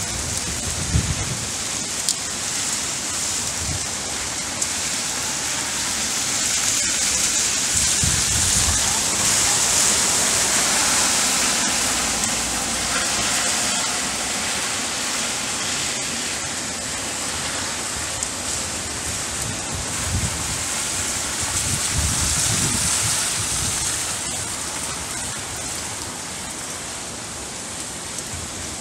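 Rain falling on a wet street and pavement during a tropical cyclone: a steady hiss that swells louder about a third of the way in and again later, then eases, with faint low rumbles now and then.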